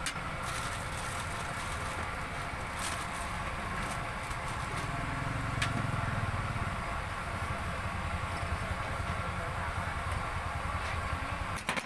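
Steady roadside traffic noise with a vehicle passing about five seconds in, and a few sharp knocks of a knife against a wooden chopping board as bread is sliced.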